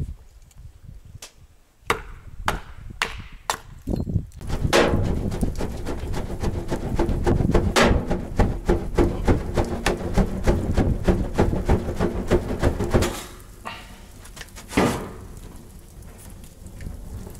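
A hatchet splitting kindling on a wooden chopping block: several sharp chops in quick succession. Then a wood fire in a metal barbecue grill crackling and rushing as it is fanned, the noise pulsing with the fan strokes, and settling to a quieter crackle near the end.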